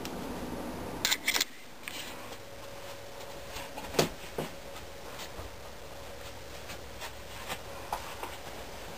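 Handling noise from a handheld camera as the person holding it moves: a few sharp clicks and knocks, a quick pair just after a second in and the loudest about four seconds in, then scattered small ticks, over quiet room tone with a faint steady hum.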